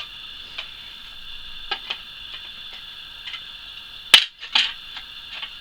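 Side cutters snipping plastic moulding sprues off an injection-moulded part: a few light clicks, then a sharp snap about four seconds in and a second one half a second later.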